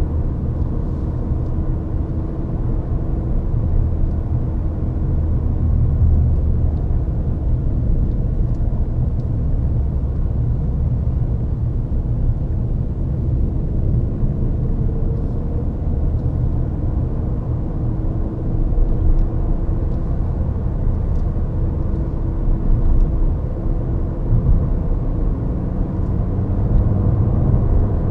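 Ford Fiesta ST being driven on the road: a steady low rumble of road and engine noise, with a faint engine note that drifts slowly up and down with speed.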